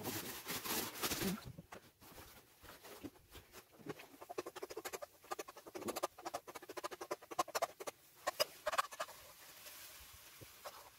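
A utensil scraping and tapping in a frying pan as scrambled eggs are scooped out, a quick run of scratchy clicks that thins out near the end. A brief rustle of packaging being handled comes first.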